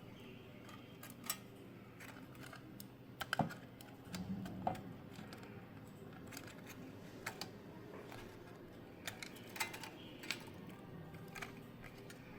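Irregular light clicks and taps of small parts being handled, over a faint steady hum.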